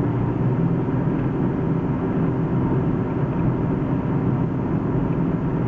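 BMW E36 driving, with a steady whine over the road and drivetrain noise. The whine comes from a failing driveshaft center bearing, though it was first taken for the automatic gearbox.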